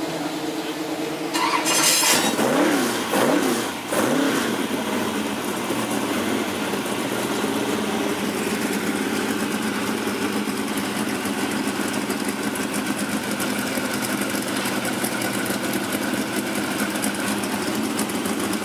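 Chevrolet Corvette Grand Sport's carburetted V8 running in the paddock with the bonnet open. It is blipped hard a few times about two to four seconds in, the revs rising and falling, then settles into a steady idle.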